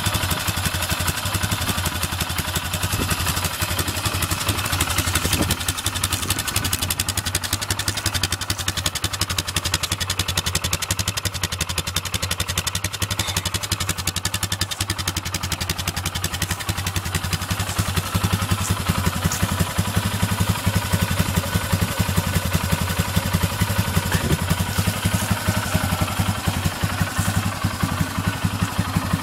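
Polaris Sportsman 500 HO ATV's single-cylinder four-stroke engine idling steadily, a fast even chugging that gets a little louder about two-thirds of the way in.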